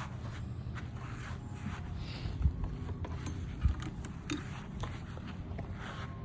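Daewoo DLM1400E electric lawn mower running with a steady low hum, with repeated swishing and two sharp thumps a little over a second apart.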